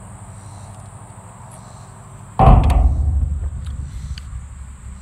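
Quiet at first, then a sudden thump about two and a half seconds in, followed by a low rumble that fades over the next two seconds: handling noise as the drink can comes down from a sip.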